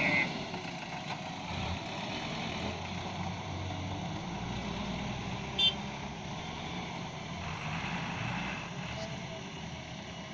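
Heavy diesel engine of an earthmoving machine running steadily, with a short sharp click about halfway through. A reversing alarm's beeping stops right at the start.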